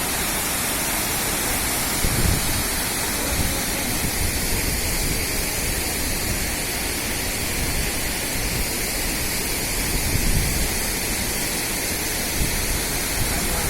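Shaki waterfall's falling water rushing steadily, with a few brief low rumbles.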